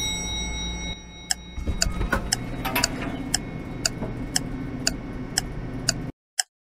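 A clock ticking steadily, about two ticks a second, over a steady low hum. The hum cuts off about six seconds in, and the ticking goes on alone.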